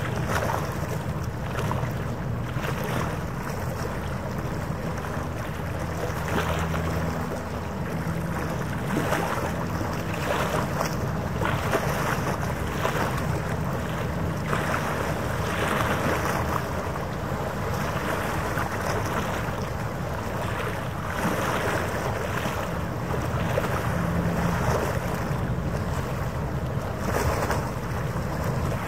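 Wind rushing over the microphone with harbour water washing in the background: a steady noise that swells and eases in irregular gusts, with a low rumble underneath.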